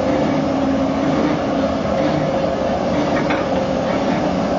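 Locomotive turntable turning with a BR 86 steam locomotive and a Köf diesel shunter on it: a steady mechanical hum and running noise, with a couple of light knocks.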